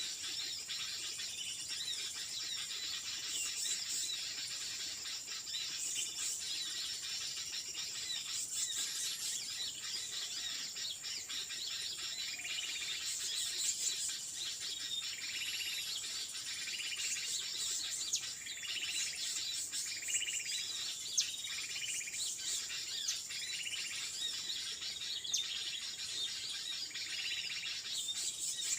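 Small songbirds chirping and calling over a steady high insect drone, with a run of short repeated call notes about once a second through the middle.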